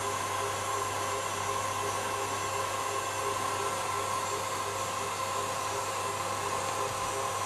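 KitchenAid stand mixer running steadily with its whisk attachment, whipping egg whites and sugar into a meringue.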